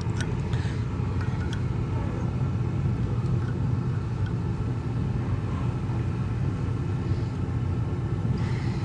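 A steady low rumble with a few faint metallic clicks from snap ring pliers working a stiff snap ring in a tractor's front planetary hub. A sharper clink comes at the very end.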